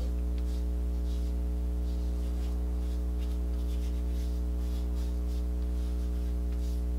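Steady low electrical hum, with faint soft rubbing strokes as a cleansing pad is wiped over the skin of the chest.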